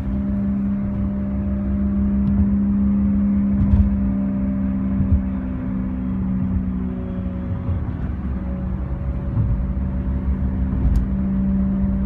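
Inside the cabin of a 2006 Scion xB at highway speed, a steady, loud low drone sits over tyre and road rumble. It comes from a failing rear wheel hub bearing.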